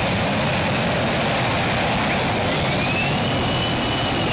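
Modified pulling tractor's engine running hard at high revs, pulling the sled down the track: a loud, steady engine noise with a faint high whine that rises about halfway through and then holds.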